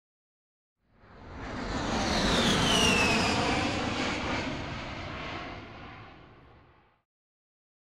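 A whoosh sound effect like a jet passing overhead: a rushing noise swells in about a second in, peaks with a falling whistle, then fades away over several seconds.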